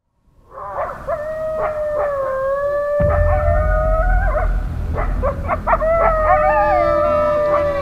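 Canine howling: long, drawn-out howls with a slightly wavering pitch, one after another, the first lasting about four seconds. A deep low rumble comes in suddenly about three seconds in.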